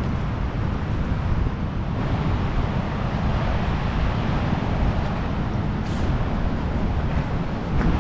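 Gale-force wind buffeting the microphone: a steady, loud low rumble with no break.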